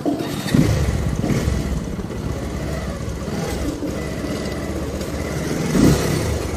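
Motorcycle engine starting about half a second in, then running, with a short rev near the end as the bike moves off.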